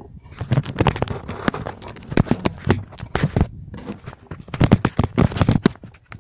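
A just-landed pike thrashing in the boat: rapid, irregular knocks and slaps in three bouts.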